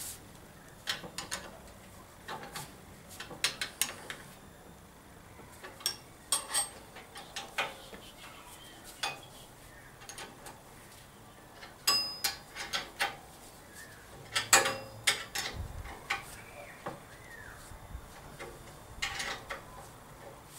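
Small metal parts and hand tools clinking, clicking and knocking at irregular intervals, with the loudest knocks about fifteen seconds in.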